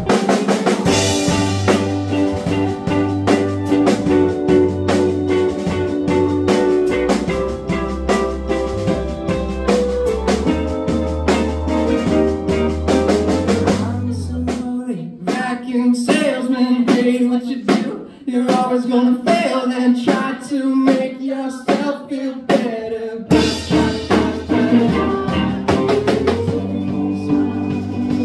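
Indie rock band playing live: electric guitars, keyboard and drum kit, with a woman singing. The low bass notes drop out about halfway through and come back in near the end.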